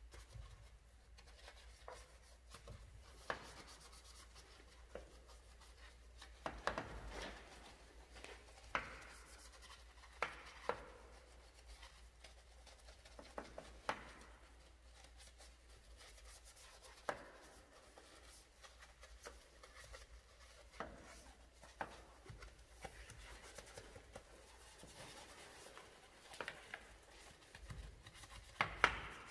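A small wheel-detailing brush scrubbing a foam-covered spoked wheel rim, a faint rubbing sound broken by irregular clicks and taps where the brush knocks against the spokes.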